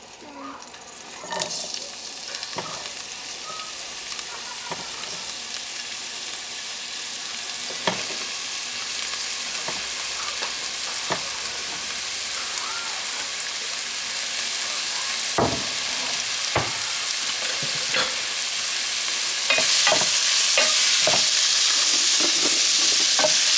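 Vegetables sautéing in oil in a pot, a steady sizzle that grows louder and steps up near the end. A spoon knocks and scrapes against the pot as they are stirred, now and then and then more often near the end.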